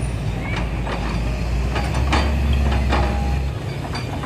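Kobelco crawler excavator's diesel engine working hard under hydraulic load as it lifts and swings a bucketful of soil: a loud low drone that drops off suddenly about three and a half seconds in, with scattered sharp metallic clanks.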